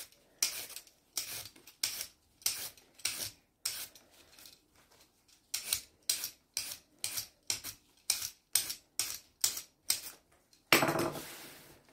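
Vegetable peeler scraping down raw carrots in quick repeated strokes, about two to three a second, with a short lull in the middle. Near the end there is about a second of louder noise.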